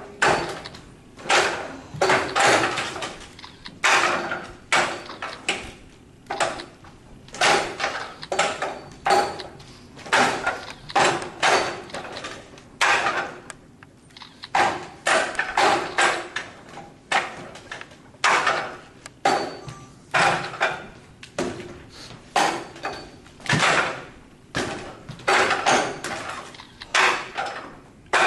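Forearms and hands knocking against the wooden arms and trunk of a Wing Chun wooden dummy, a long run of sharp wooden knocks, often in quick groups of two or three.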